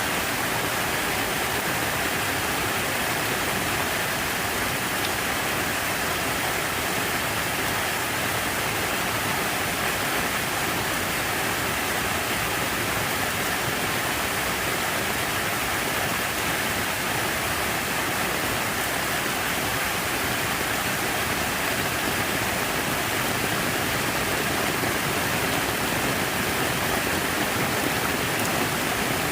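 Steady rush of falling, splashing water, even and unbroken.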